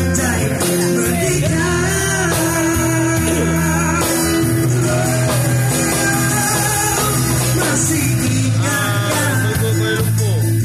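A man singing into a microphone while strumming an acoustic guitar, amplified through a PA speaker, as a continuous rock-style song.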